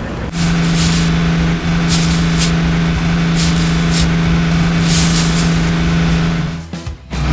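Heavy vehicle engine sound effect running steadily, with about six short hisses over it; it drops away shortly before the end.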